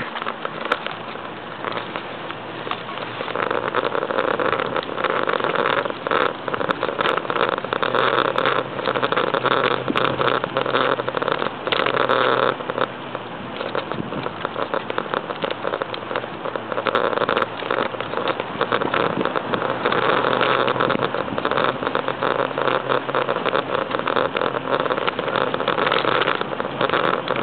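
Steady rushing noise of riding a bicycle on a paved path: wind across the camera's microphone mixed with tyre noise on the pavement, swelling and easing every few seconds.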